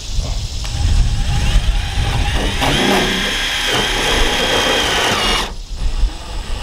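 Power drill spinning up to a steady high whine, which holds for about three seconds and then stops suddenly.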